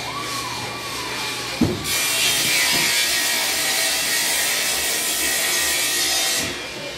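Workshop machinery drones steadily. A single knock comes just before two seconds in, then a power tool starts with a loud, steady hissing, rasping noise that stops near the end.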